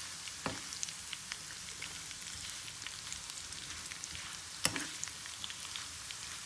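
Small dried salted anchovies frying in hot oil in a pan: a steady sizzle with scattered crackling pops. Two sharp knocks from the metal stirring spoon against the pan come about half a second in and again near five seconds in.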